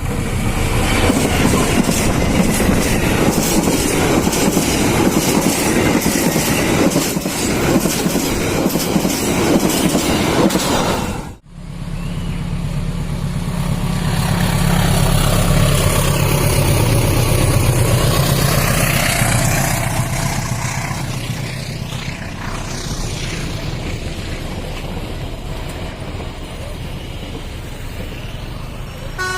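A train passing close by, its wheels clattering over the rail joints. After an abrupt break a little over a third of the way in, a deeper steady rumble swells and then slowly fades away.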